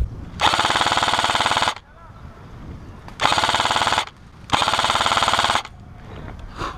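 Airsoft electric replica rifle firing three bursts on full auto, each a rapid rattling buzz of shots about a second long, the last two close together.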